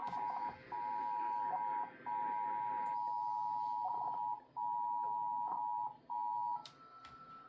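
Emergency Alert System attention tone over a radio broadcast: a steady high alert tone that drops out briefly four times and stops about six and a half seconds in. A fainter, higher steady tone follows it.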